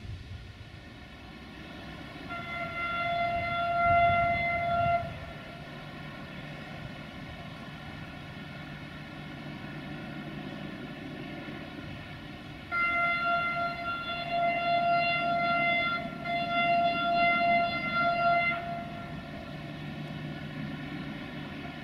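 Horn of an approaching 060-DA (LDE2100) diesel-electric freight locomotive sounding two blasts on one steady note. A short blast of about three seconds comes first, then after a pause a longer one of about six seconds with brief dips, over a low diesel drone.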